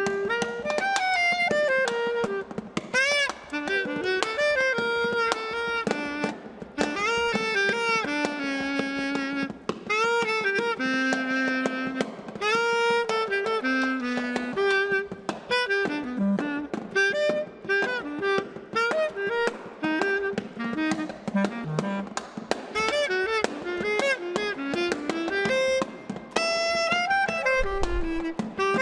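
Free-improvised jazz duo: a single-reed woodwind plays quick, leaping melodic runs against a snare drum. The drum, its head covered with a cloth, is played with sticks in rapid taps and rolls.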